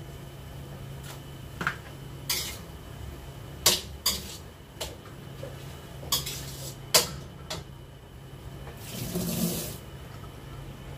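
Metal spatula knocking and scraping against a wok during stir-frying, about eight sharp clinks at uneven intervals over a steady low hum.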